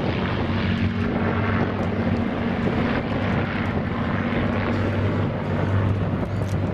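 Rolls-Royce Merlin V12 piston engines of an Avro Lancaster bomber (four engines) and a de Havilland Mosquito (two engines) flying past together in formation: a steady, deep propeller drone.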